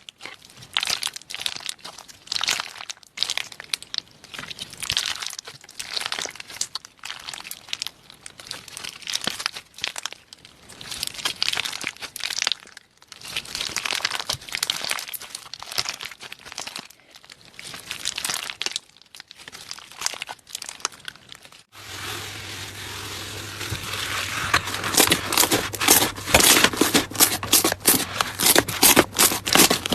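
Slime being squeezed and stretched, crackling in repeated bursts. About 22 s in, a different slime starts with denser, rapid clicky crackling over a steady low hum.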